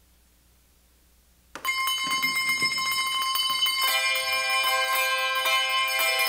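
Near silence, then about one and a half seconds in, a handbell choir starts ringing, many bell tones sounding together and lingering; lower bells join in about four seconds in.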